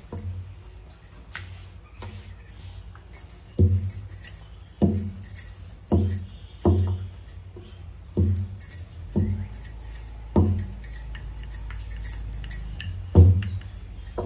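Wooden rolling pin rolling chapati dough on a granite countertop, knocking against the stone about once a second, with bangles jingling on the wrists.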